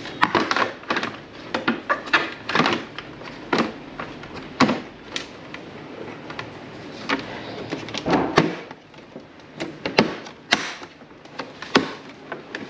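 Hard plastic rear body panel of a Honda PCX scooter knocking and clicking against the frame as it is handled and pressed into place: an irregular string of sharp clicks and knocks, a few of them louder.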